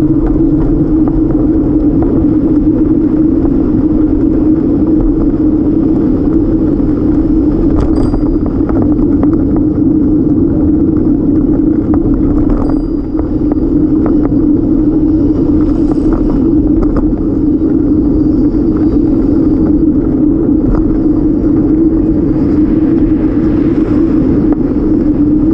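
Steady rumbling hum of a bicycle rolling along pavement, tyre and road noise mixed with wind on a bike-mounted camera's microphone, with a few small knocks from bumps.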